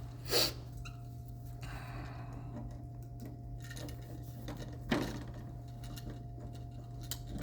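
Two short, sharp clicks, about half a second in and again near five seconds, from hand tools and wire being handled while a light switch's ground wire is connected, over a steady low hum.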